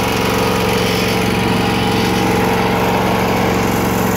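Exmark walk-behind mower's engine running steadily at an even speed.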